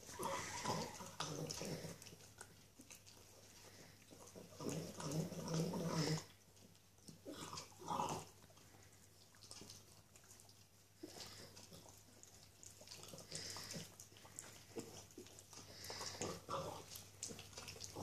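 Norwich Terrier gnawing and chewing a bone: irregular crunching, clicking and wet smacking in bouts, loudest near the start, around five seconds in and around eight seconds in.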